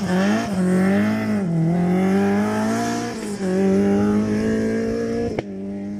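Rally car engine accelerating away hard through the gears. The pitch climbs and then drops at each of three upshifts, and the note grows fainter as the car pulls away. A sharp click comes near the end.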